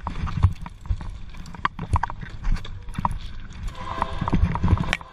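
Irregular clattering and knocks of a bicycle being handled over the sleepers and ballast of a railway track, with hurried footsteps, echoing in a tunnel. A steady pitched hum joins about three-quarters of the way through and keeps going.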